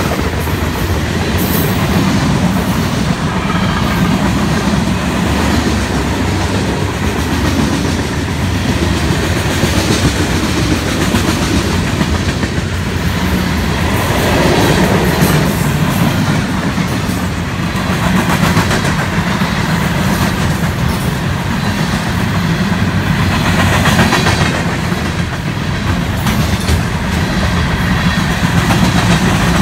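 Freight cars of a mixed freight train rolling past close by: a steady, loud rumble of steel wheels on the rails with a clickety-clack of the wheels.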